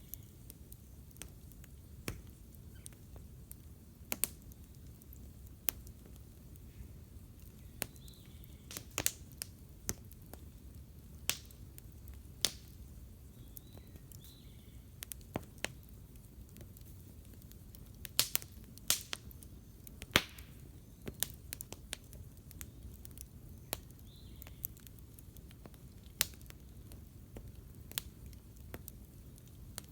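Wood campfire crackling: irregular sharp pops and snaps, a few louder ones bunched together about two-thirds of the way through, over a faint low rumble.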